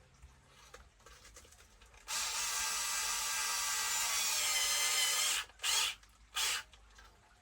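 Cordless drill-driver running for about three seconds to drive a screw, then two short bursts as the screw is run home.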